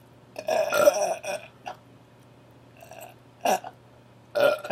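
A person burping on purpose: one long burp about half a second in, then a few shorter burps, brought up after drinking.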